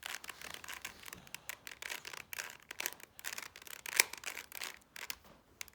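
Plastic clicking and scraping of a 3x3 Rubik's Cube's layers being turned rapidly in the hands, with one sharper click about four seconds in.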